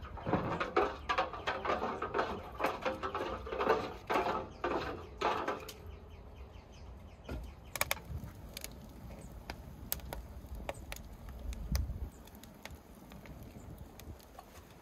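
Hands working food in a stainless steel bowl, a dense rustling and clicking for about the first five seconds. Then a wood fire burning in a brick oven, with scattered sharp crackles and pops.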